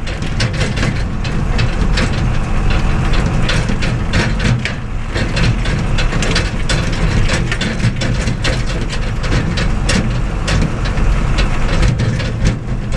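IHC 745 tractor's diesel engine running under way, heard from inside the cab as a steady low drone. Dense rattling and clattering from the cab and hitched load over the lane is mixed in.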